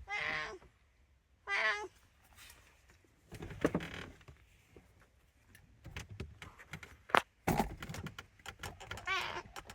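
A cat meowing three times, short meows at the start, about a second and a half in, and near the end. Several knocks and handling noises fall in between.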